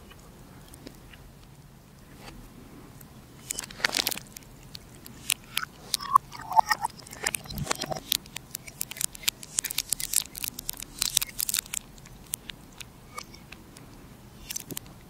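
Close-miked liquid and glass sounds as tea runs between a paper carton and a bird-shaped glass: a dense run of sharp clicks and crackles from about four to twelve seconds in, with a short gurgle around six seconds.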